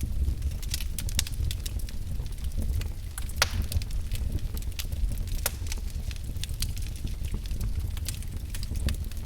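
Wood fire in a fireplace crackling, with irregular sharp pops over a steady low rumble; a louder pop comes about three and a half seconds in and another near the middle.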